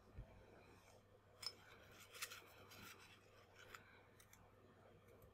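Near silence: faint room tone with a few faint scratchy clicks and scrapes, the sharpest about a second and a half in.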